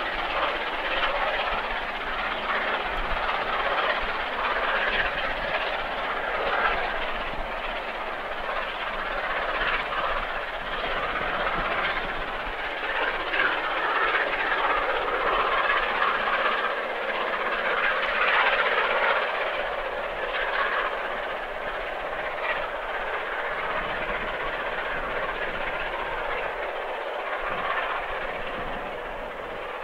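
Steam locomotive 60163 Tornado, a three-cylinder Peppercorn A1 Pacific, climbing Shap with a passenger train: a steady rush of locomotive and train noise that swells and eases a little.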